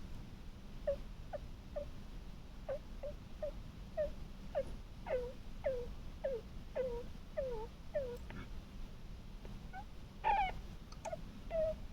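A sleeping pet snoring in short, high squeaky whistles that each fall in pitch, about two a second, with a louder one near the end.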